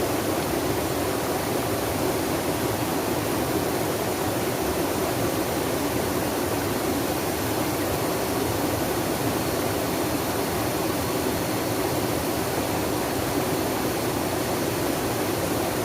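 Flowing water rushing steadily, an even full sound that does not change.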